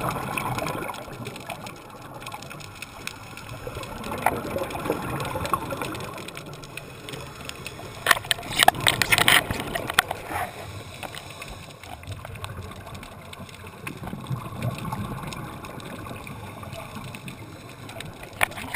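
Underwater sound heard through a camera housing: muffled water noise and gurgling bubbles from scuba divers' exhalations. A louder crackling burst of bubbles comes about eight to ten seconds in.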